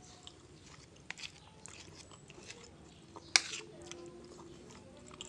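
Quiet eating: chewing, with a metal spoon clicking against a ceramic plate now and then. The sharpest click comes a little past halfway.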